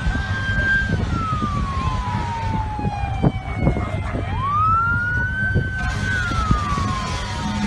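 Emergency vehicle siren wailing in slow cycles: the pitch rises, holds high for about a second, then glides slowly down, twice, over a steady low rumble.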